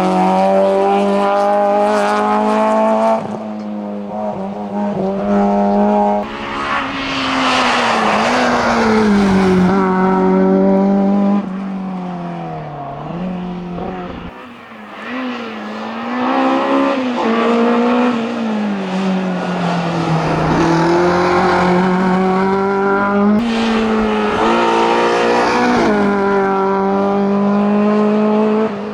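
Hillclimb race car engine running hard at high revs, its note falling and rising with gear changes and lifts for corners. About halfway through it drops away briefly, then pulls hard again.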